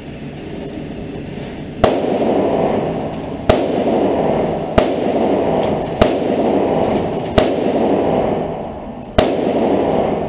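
Six gunshots from other lanes of an indoor shooting range, spaced irregularly about one to two seconds apart, each echoing and dying away slowly in the range.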